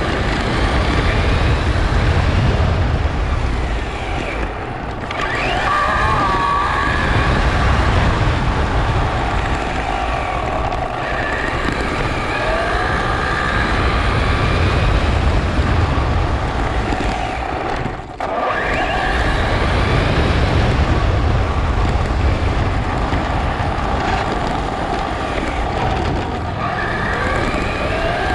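Electric motor of a Traxxas Slash 4x4 RC truck whining up and down in pitch as it accelerates and slows on several runs, over a loud rumble of tyres on pavement and wind, heard from a camera riding on the truck. The sound drops away briefly twice, near the start and about two-thirds of the way through.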